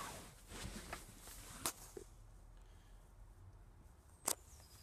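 The middle seat backrest of a Ford Transit's front bench being folded down into a table with cupholders: handling and rustling, with two sharp clicks, one near the middle and one near the end.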